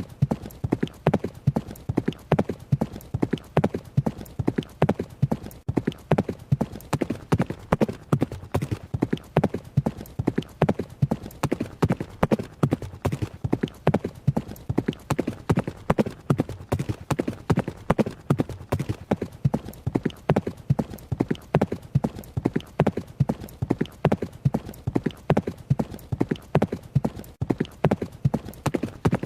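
Horse hooves beating in a steady running rhythm, the strikes falling in even repeating clusters without a break.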